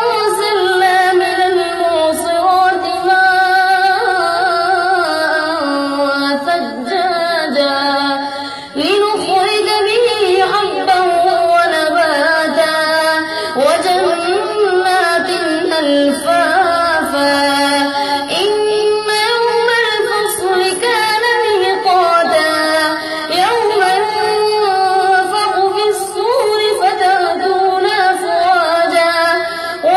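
A boy's high voice reciting the Quran in a melodic chanting style: long held notes that waver and glide between pitches, with a brief pause for breath about nine seconds in.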